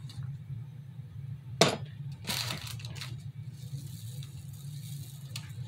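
A sharp glass clink about a second and a half in, as of a glass jar knocked or set down on a table, then a short rustle of handling, over a steady low hum.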